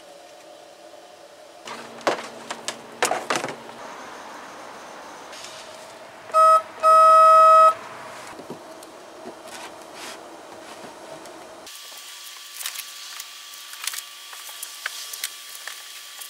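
Small electric horn sounding a short beep and then a longer beep of about a second, a steady pitched tone. A few clicks and knocks of handling a few seconds before it.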